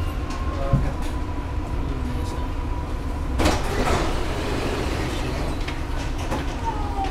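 Dubai Metro train running, heard from inside the car: a steady low rumble with a thin whine that fades about three seconds in. There is a brief knock under a second in, and a short louder rush of noise about half a second later than the fade.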